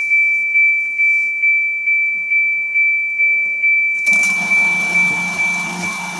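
Wayfarer TGX200 bus ticket machine printing its end-of-duty report: a steady high-pitched whine pulsing about twice a second, joined about four seconds in by a louder, noisy run of the print mechanism with a low hum that stops near the end.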